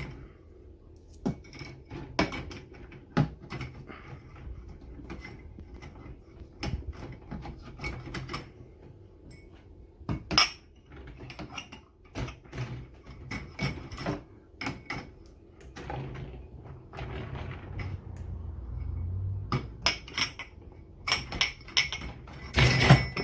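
Irregular clatter of clicks and knocks, as hard parts of a newly delivered compact dishwasher are handled and moved, with a low rumble underneath and a loud burst of knocks near the end.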